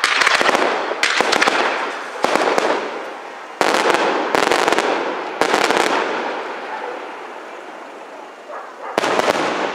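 Aerial fireworks shells bursting one after another, about six sharp bangs in the first six seconds, each trailing off in a fading noisy tail. A lull follows, then another burst near the end.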